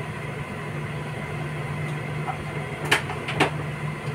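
Steady low electrical hum from a kitchen appliance, with a couple of short sharp clicks about three seconds in.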